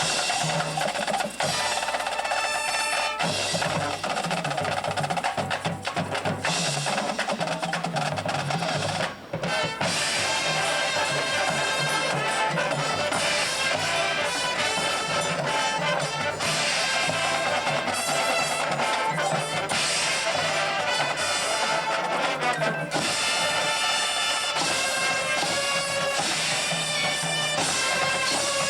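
Drum and bugle corps playing: snare drums and brass horns together, with a brief break about nine seconds in.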